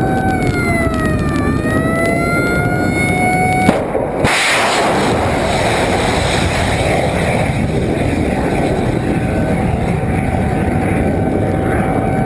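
Loud steady roar of a cruise missile launch from a warship. A whining tone dips and climbs in pitch and breaks off about four seconds in, where a sudden burst of hiss comes in before the roar carries on.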